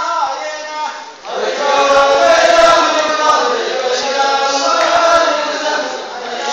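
Men's voices chanting a slow melody in long held notes, without words clear enough for speech. It dips briefly, then comes in loud about a second in.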